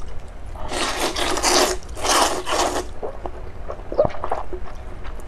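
Round rice noodles of luosifen slurped into the mouth in two long, loud slurps, followed by quieter short wet mouth clicks.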